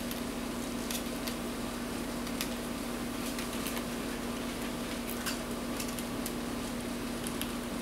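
Scattered light clicks of a precision Torx screwdriver working the small screws out of a laptop's aluminium bottom case, about ten irregular ticks over a steady low hum.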